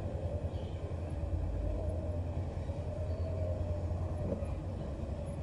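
Electric commuter train running on the adjacent line: a steady low rumble with a hum on top.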